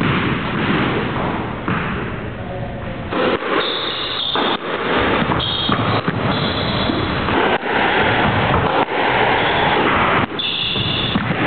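Squash rally: sharp hits of the ball off racket and walls every second or two, with sneakers squeaking on the wooden court floor.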